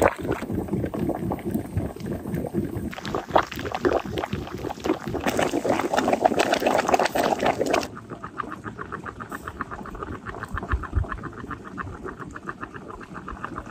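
Water boiling hard in a large pot around lidded glass jars, a dense bubbling and spattering. About eight seconds in it drops abruptly to a quieter boil with a fast, even ticking.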